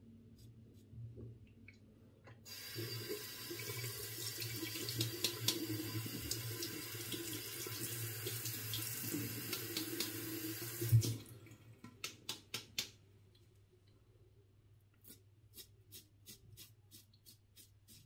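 Water tap running into a bathroom sink for about eight seconds, rinsing a Derby Samurai 3 Platinum disposable razor, then cutting off with a knock. A few sharp clicks follow, and near the end come quick short scraping strokes of the razor over week-long stubble.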